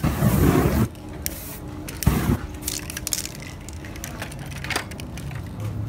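A burst of flame torching the wet spray paint: a short, loud whoosh lasting under a second. A second, shorter burst comes about two seconds in, followed by a few brief hisses of spray.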